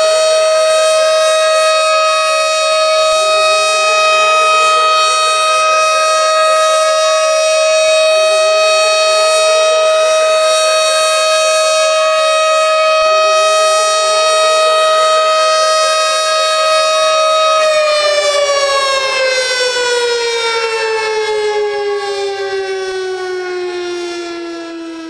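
Tornado warning siren sounding a steady high wail, then winding down about eighteen seconds in, its pitch falling as it fades. A fainter, lower tone rises over and over beneath the steady wail.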